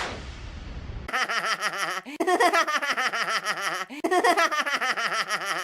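A fading hiss in the first second, then a laughter sound effect: high-pitched, rapid giggling in three long bursts.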